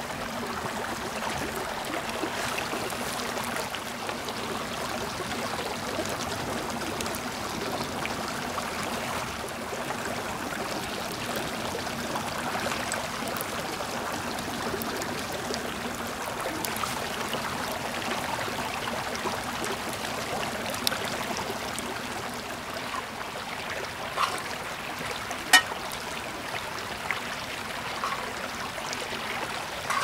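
Steady rushing water noise, with a few sharp clicks in the last few seconds, one louder than the rest.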